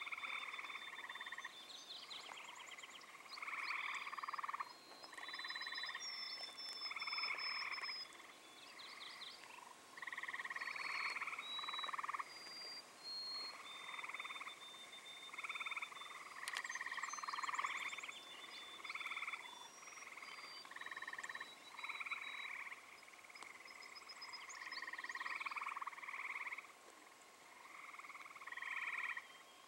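A chorus of frogs calling, short repeated calls overlapping one another throughout, with thin high bird notes above them.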